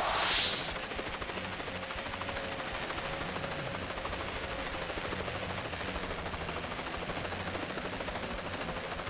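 Cartoon sound effects: a short whoosh in the first half second, then a steady rapid rattling clatter.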